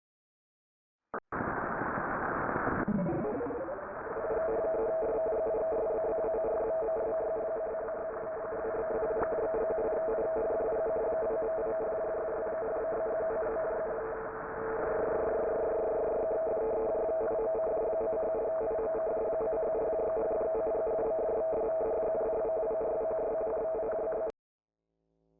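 Thin, tinny hiss and crackle like a telephone line or radio, starting about a second in. A falling electronic sweep comes about two seconds in, then a steady two-note electronic tone holds over the static, its higher note dropping out briefly near the middle. The whole signal cuts off abruptly about a second before the end.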